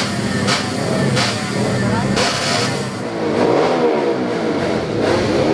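Motorcycle engines at high revs, their pitch climbing and then dropping around the middle of the clip and again near the end.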